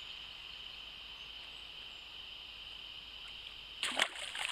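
A carp splashing into the water as it is let go, a short burst of splashing near the end, over a steady high background hiss.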